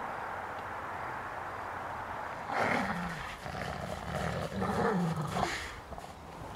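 Wolf growling over a buffalo rib cage in two bouts, starting about two and a half seconds in, each dropping in pitch at its end. It is a food-guarding growl at another wolf close by.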